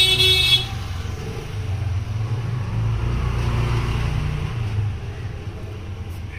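A vehicle horn sounds and cuts off about half a second in. Then a motor vehicle's engine rumbles past, swelling and fading out about five seconds in.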